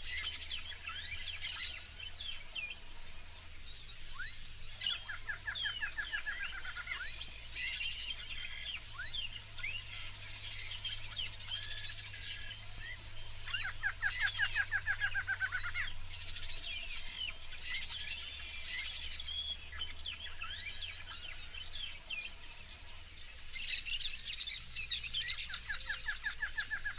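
A flock of yellow-rumped marshbirds calling in a busy chorus of short chirps and whistles, with a rattling trill repeated three times, over a steady high hiss.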